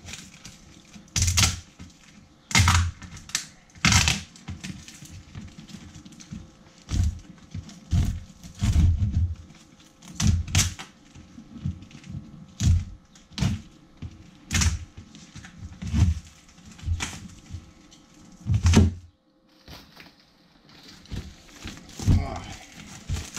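Irregular knocks and thumps, roughly one every second or so, from a cardboard shipping box being handled, with a brief lull near the end.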